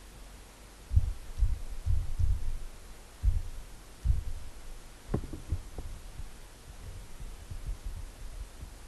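Dull low thumps at an irregular few per second, loudest in the first half, from typing a label on a keyboard and handling the mouse at the desk.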